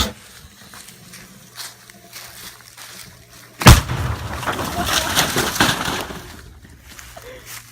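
A single loud blast about three and a half seconds in, from the explosive charge lit inside a mini fridge, followed by about two seconds of noisy aftermath that fades out.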